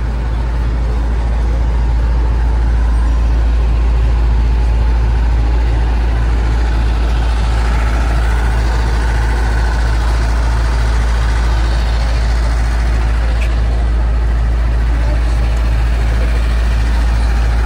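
Parked ice cream truck's engine idling: a steady, low rumble that grows louder over the first couple of seconds and then holds even.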